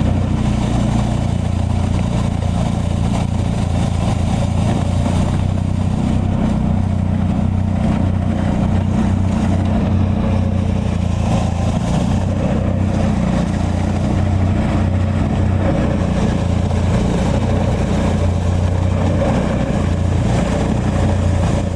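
A heavy snow-clearing machine's engine running steadily and loudly at a constant speed, with a noisy rush over the engine sound.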